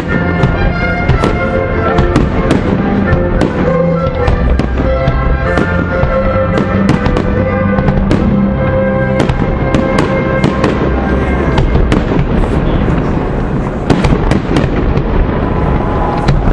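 Aerial firework shells bursting in a dense barrage, many sharp bangs a second, over accompanying music. The music thins out in the last few seconds while the bangs go on.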